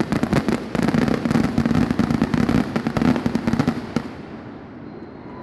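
Aerial fireworks barrage: a dense, rapid volley of bangs and crackles that stops about four seconds in, then dies away.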